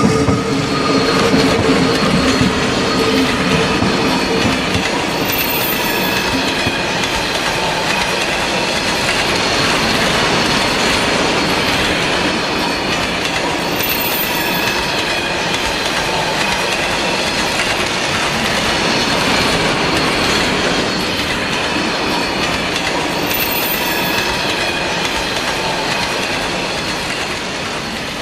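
Long train of tank wagons hauled by two electric locomotives running steadily along the track, a continuous rolling noise with rail clatter and some wheel squeal.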